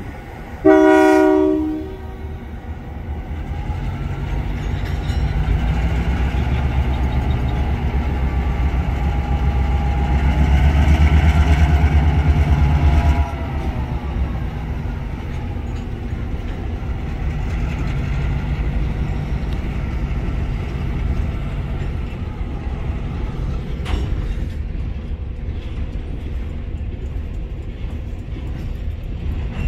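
Ex-CN EMD GP9 diesel locomotive sounding one short blast of its K3 horn about a second in. Its engine then throttles up and runs louder under load until about 13 seconds in, when it drops back and keeps running as the hopper cars roll past, with a single sharp click about 24 seconds in.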